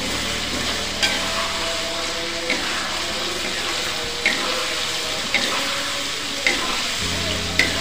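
Beef and ground spice paste frying in oil in an aluminium wok, a steady sizzle as the paste is sautéed until cooked. A metal ladle knocks and scrapes against the wok six times as it is stirred.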